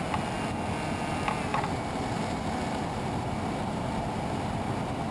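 Steady wind rushing across the microphone, with a faint high thin tone over it and two light clicks about one and a half seconds in.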